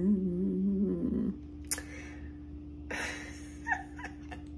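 A woman humming a low, steady note for about a second, then breathy exhales and a short laugh.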